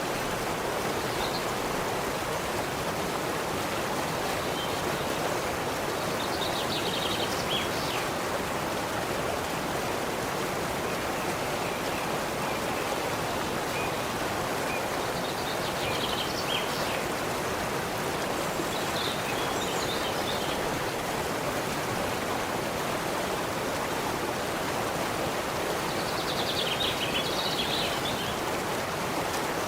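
Steady rush of running water, like a forest stream, with a bird chirping in short bursts of quick high notes about five times over it.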